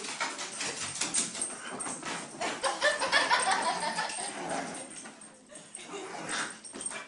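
A dog making low, irregular noises and moving about, without clear barks.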